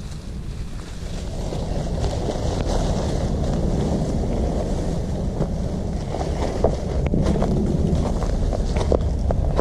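Wind buffeting the microphone: a heavy, unsteady low rumble with scattered faint clicks in the second half.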